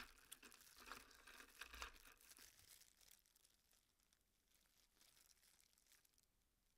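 A disposable plastic glove crinkling while the gloved hand rummages among small plastic Cherry switch housings in an ultrasonic cleaner's tank of cleaning solution, with many small clicks of the parts knocking together. Busiest in the first couple of seconds, then faint scattered rustles.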